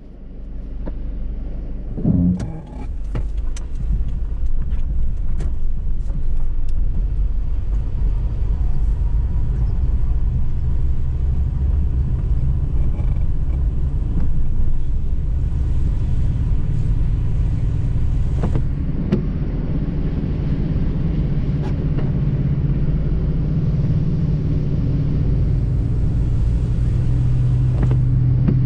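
A car driving on a wet road, heard from inside the cabin: a steady low engine and tyre rumble that builds over the first couple of seconds, with scattered sharp clicks and knocks.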